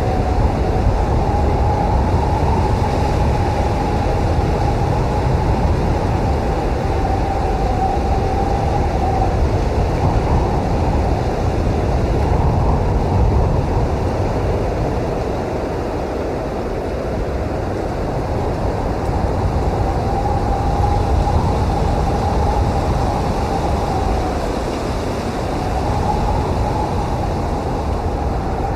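Snowstorm wind blowing steadily with a deep rumble and a thin whistling tone. The whistle fades out about a third of the way in and returns near the end. The wind eases slightly around the middle.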